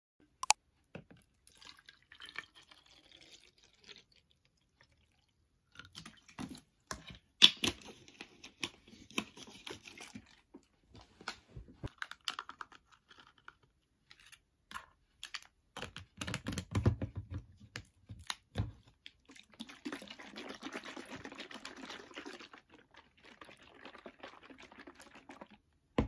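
A plastic bottle of liquid handled on a table: scattered clicks and knocks, then a few seconds of liquid sloshing inside as the bottle is shaken to mix its orange seasoning through.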